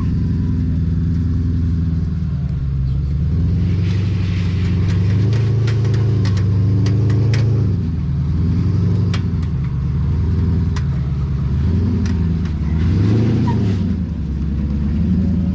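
First-generation Porsche Cayenne's engine working at low revs as the SUV crawls up a rock ledge, its pitch rising and falling with the throttle. Scattered sharp clicks come through the middle stretch.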